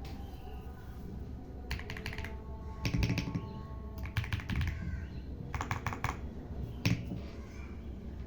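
Keystrokes on a LINGBAO K87 mechanical keyboard with Leobog Purple King switches, typed in short quick runs of clicks, about five runs with pauses between.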